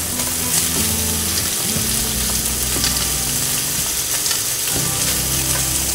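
Onion wedges and bacon sizzling in a hot frying pan as the onion is tossed in, with a few light clicks of metal tongs against the pan.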